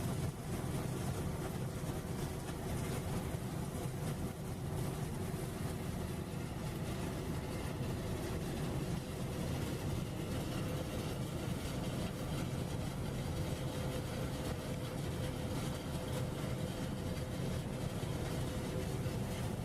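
Machinery running steadily: a continuous low hum and rumble with a couple of faint steady tones, unchanging throughout.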